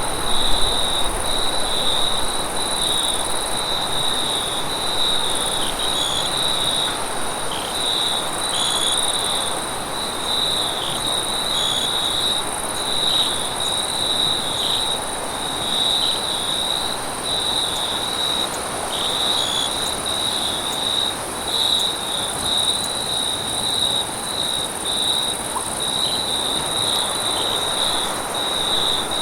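A night-time chorus of crickets and other insects chirping continuously: a dense, pulsing trill in the upper-middle register over a steady higher hum, with a soft background hiss.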